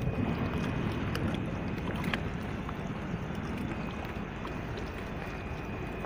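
Steady rumble of wind buffeting the microphone at the water's edge, with a few faint clicks about one and two seconds in.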